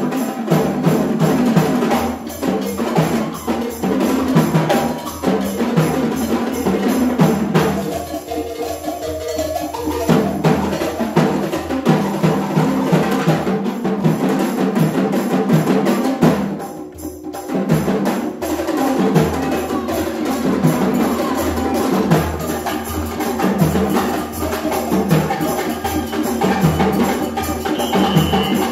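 Live percussion ensemble of hand drums and tuned gongs playing a steady, driving rhythm for a dance, with pitched metal tones ringing over the drum beat. The drums drop out for a couple of seconds about eight seconds in, and the music briefly dips near the middle before the beat picks up again.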